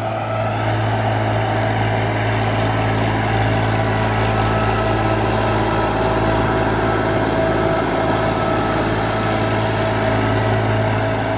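TAFE diesel tractor engine running at a steady speed while pulling a rotary tiller through wet paddy soil, a continuous even drone with no change in pitch.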